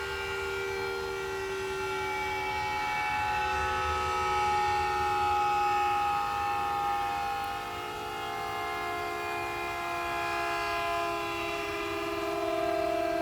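Warning siren sounding in a weekly siren test: several steady tones at once, forming a chord that slowly sags and rises in pitch.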